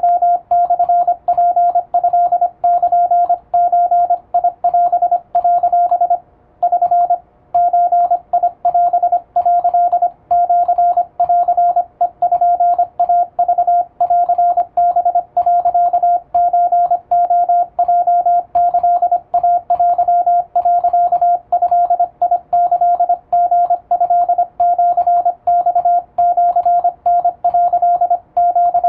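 Electronic-keyer Morse sidetone: a single steady beep keyed rapidly into dots and dashes, sending plain-language Japanese Wabun Morse code, with one longer break about six seconds in.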